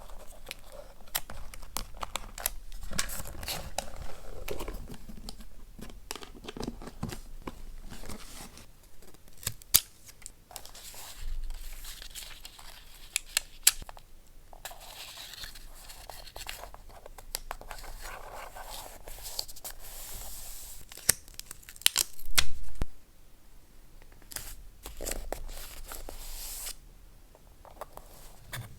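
Paper and collage materials being handled close up: rustling, crinkling and tearing, broken by many short sharp clicks. There is a louder burst of rustling about three-quarters of the way through.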